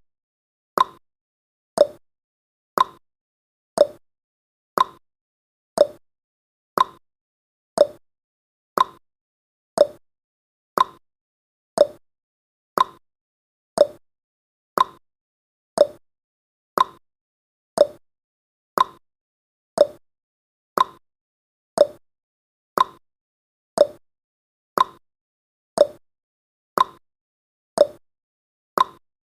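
Clock-style tick-tock sound effect of a countdown timer: one short, sharp tick each second, alternating between a higher and a lower tick.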